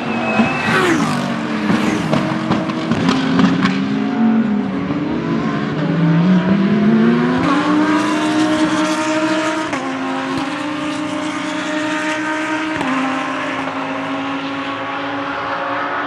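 GT3 race car, an Audi R8 LMS with its V10, braking and downshifting at first with sharp pops, then accelerating hard out of the corner and shifting up three times, the engine note easing as it pulls away.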